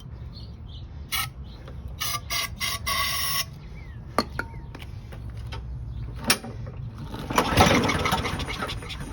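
Briggs & Stratton 6.5 hp push-mower engine pull-started about seven seconds in, catching and running rough and loud after a no-start. Earlier, a few short bird calls and light clicks.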